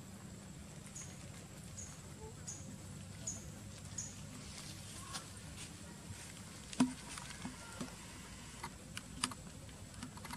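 Outdoor ambience: a steady high insect drone over a low hum, with a run of short high chirps about every three-quarters of a second in the first four seconds, then scattered light clicks and taps, the sharpest about seven seconds in.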